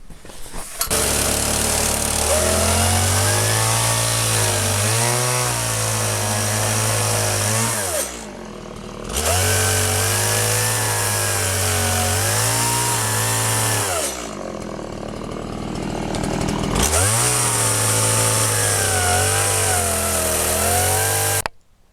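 Chainsaw with a small carving bar cutting wood, revving up and down in three long stretches and easing off between them, then stopping abruptly near the end.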